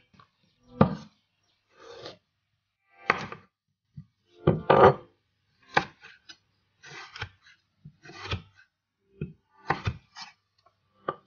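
Chef's knife slicing a raw carrot into long strips on a wooden cutting board: an irregular series of cuts, each ending with the blade knocking on the board, roughly one a second.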